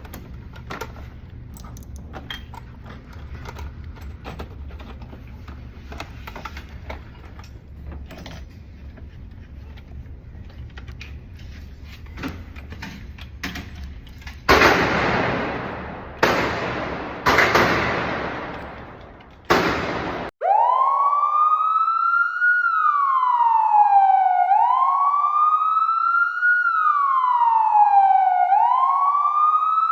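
Four gunshots at a shooting range, about a second or two apart. Soon after, a wailing siren starts and rises and falls in pitch every two and a half seconds or so.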